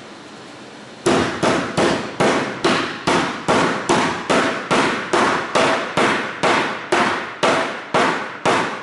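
A light hammer striking round metal fittings set in a plywood sheet, a steady run of about two blows a second starting about a second in.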